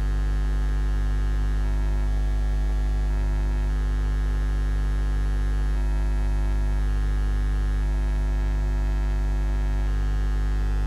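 Steady electrical mains hum in the audio feed: an unchanging low buzz with many overtones.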